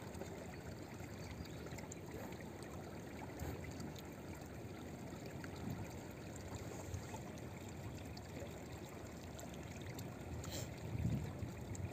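Estuary water lapping against bamboo posts and floating debris at the bank, a steady faint wash. A brief low rumble rises near the end.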